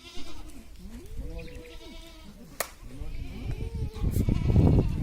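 Several goats bleating at once, their calls overlapping and rising and falling in pitch. A sharp click comes about two and a half seconds in, and a louder low rumbling noise builds near the end.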